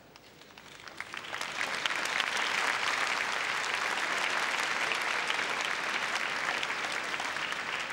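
Large crowd applauding. The clapping swells over the first two seconds, then holds steady and loud.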